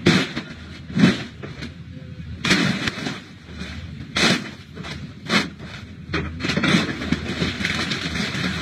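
Excavator grapple crushing and dropping scrap metal wreckage: a series of loud, irregular metallic crashes and crunches, about six in all, over the steady low running of the excavator's diesel engine.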